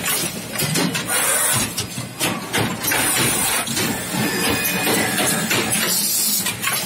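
Automatic towel hemming and cross-sewing machine running: a steady mechanical clatter with repeated short bursts of hiss.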